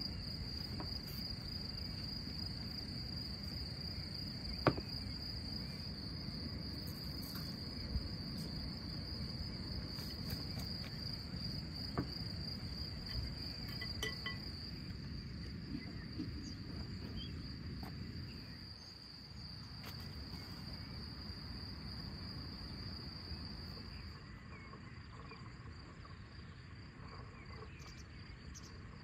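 Steady high-pitched insect chorus, a continuous trill that drops out for a few seconds near the end, over a low rumble. A few sharp clicks stand out.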